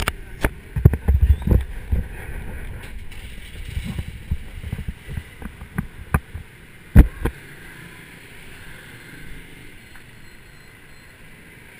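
Handling noise from a GoPro action camera being fitted: a run of knocks, bumps and rubbing on the camera, with one sharp knock about seven seconds in. After that only a quieter steady background remains.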